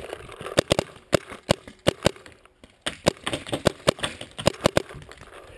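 Paintball markers firing, sharp shots coming in irregular quick strings of two to four a second, with a short pause about halfway through.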